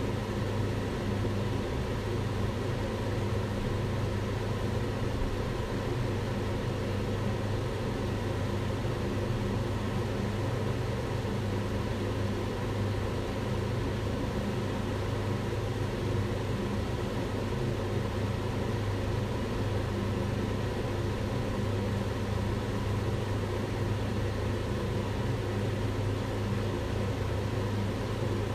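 Kitchen range hood extractor fan running steadily: an even rushing noise over a low hum.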